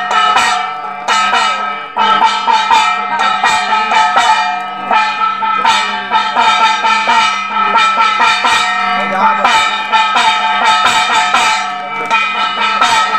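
Bells and other metal percussion struck rapidly and continuously, many ringing tones overlapping, with drums beating along: ritual percussion played at the homa.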